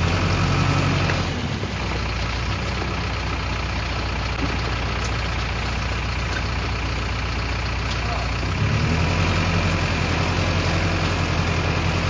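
Diesel engine of a self-loading concrete mixer running steadily. Its note drops about a second in and picks up again about two-thirds of the way through.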